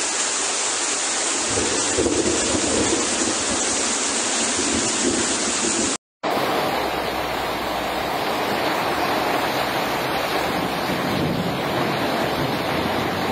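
Steady rush of heavy rain and floodwater running through a street. The sound cuts out for a moment about six seconds in and comes back with a different tone.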